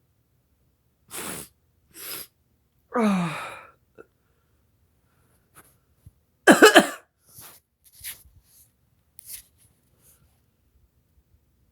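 A man's sneeze, brought on by sniffing black pepper. Two short breaths and a brief vocal sound falling in pitch come first, then the loud sneeze about six and a half seconds in, followed by a few faint sniffs.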